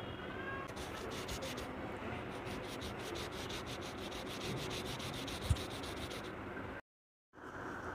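A fingertip rubbing colour into paper in rapid back-and-forth strokes, blending the coloured shading. The sound cuts out for about half a second near the end.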